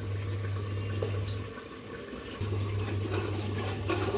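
Spice masala bubbling and sizzling in oil in a pressure cooker as it fries, a steady watery crackle over a low steady hum that drops out for about a second midway.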